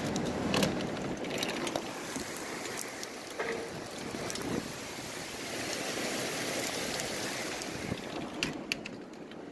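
Hail and heavy rain falling, a steady rush with many scattered sharp ticks of hailstones striking, on a roof the speaker takes to be tin. A few louder clicks come near the end.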